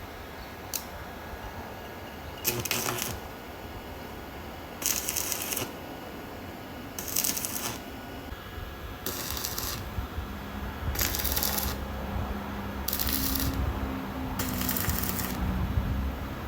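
Small stick welder's arc being struck again and again: seven short crackling, sizzling bursts, each under a second and about two seconds apart, with a low hum from about ten seconds in.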